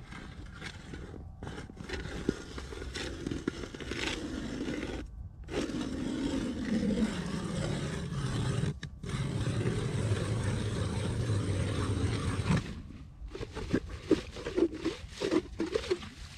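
Hand ice auger boring into river ice: the blades grind and scrape steadily, with two brief pauses as the turning is regripped. Near the end the grinding stops and gives way to a run of short scrapes and knocks as the auger is worked in the hole.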